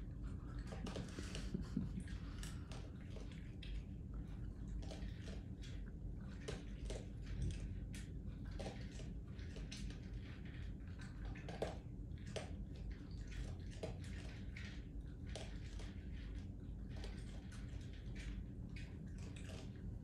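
Raccoon eating from a tray: a run of small, irregular clicks and crunches as it picks up and chews food, over a low steady hum.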